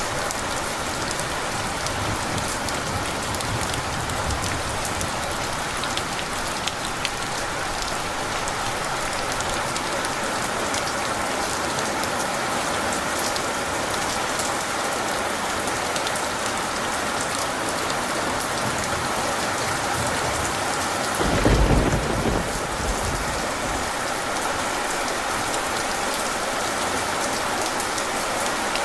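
Steady heavy rain falling, with a single deep rumble of thunder about two-thirds of the way through that lasts a second or two.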